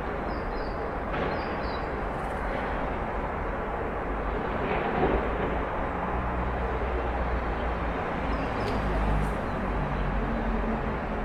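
Outdoor backyard ambience: a steady wash of distant traffic-like noise with a low rumble. A bird gives a few short high chirps near the start and once more late on, and a low engine hum comes in about halfway.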